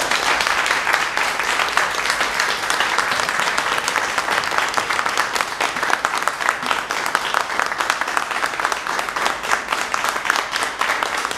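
Audience applauding steadily, a dense, loud patter of many hands clapping.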